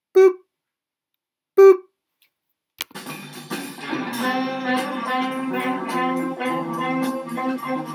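Two short countdown beeps about a second and a half apart, the second longer and louder, marking a film-leader countdown; then a click, and intro music with a plucked-string sound starts just before three seconds in and carries on.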